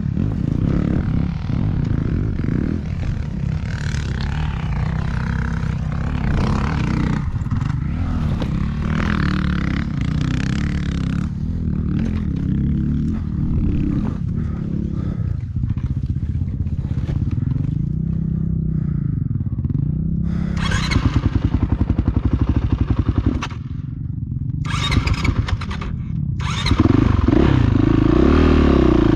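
Dirt bike engine running, mostly at a low idle, with the revs rising and falling a few times past the middle and revving harder near the end.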